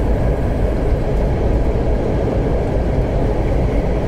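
Semi truck cruising at highway speed, heard from inside the cab: a steady low drone of engine and tyre/road noise.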